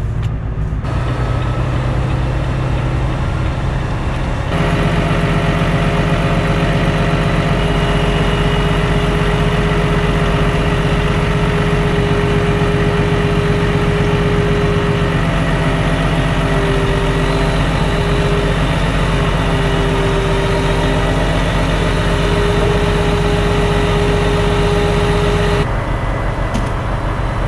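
Truck engine running while the truck rolls across the yard. About four seconds in it gives way to a louder, steady drone of the engine driving a loader crane's hydraulics as the crane lowers a truck-mounted forklift, with a whine that wavers in pitch while the crane moves. The drone stops abruptly near the end.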